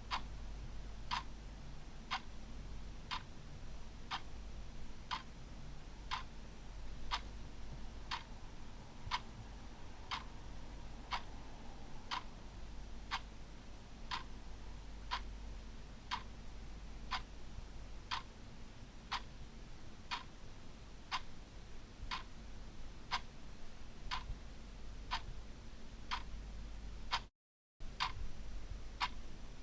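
Clock ticking steadily, about one tick a second, over a faint low hum; the sound cuts out completely for about half a second near the end.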